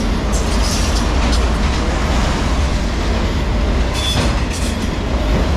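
Freight train of multilevel autorack cars rolling past: a steady rumble of steel wheels on rail, with occasional clacks and a brief high squeal about four seconds in.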